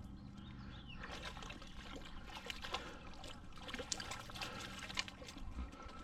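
Water trickling and lapping, with many small irregular clicks and splashes.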